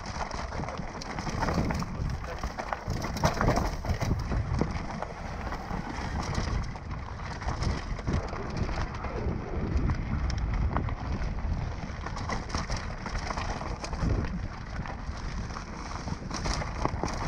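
Onboard camera audio of a bike descending a rough forest trail: wind rumbling on the microphone and the bike rattling and knocking continuously over rocks and roots.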